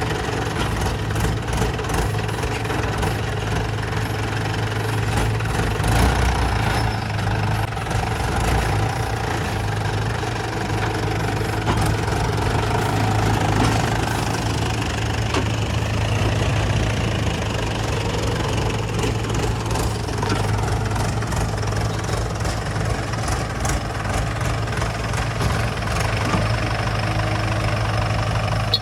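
Diesel engines of a JCB 3DX backhoe loader and a Mahindra 575 DI tractor running steadily with a low, even hum, with scattered knocks and clatter.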